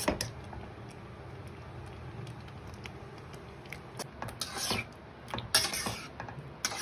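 A slotted metal spatula stirring dumplings in liquid in a pan, with light clicks and scrapes against the pan. The scraping gets busier in the second half, with a few louder strokes.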